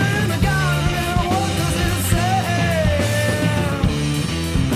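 Rock music from a band with electric guitar, bass and drums: a sliding melody line over held low notes, with cymbals hit regularly.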